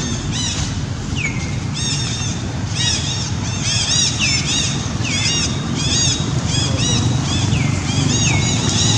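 Baby macaque squealing: rapid, repeated high arched cries, a few sliding down in pitch, over a steady low rumble.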